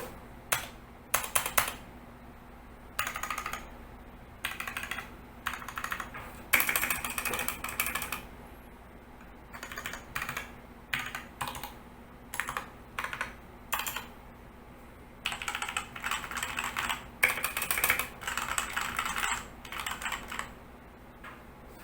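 Typing on a mechanical keyboard fitted with stock, unlubed Otemu red linear switches. The rapid keystrokes come in bursts of a second or two with short pauses between them.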